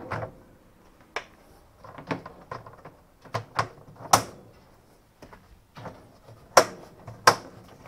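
Plastic top of a washing machine's tub being clipped back on: a string of irregular sharp plastic clicks and knocks, the loudest about four seconds in and twice near the end.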